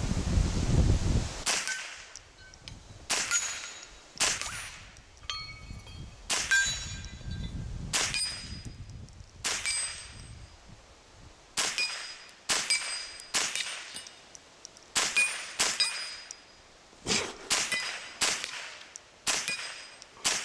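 About twenty single gunshots fired one after another at an uneven pace, each a sharp crack, many followed by the brief ringing ping of a steel target being hit.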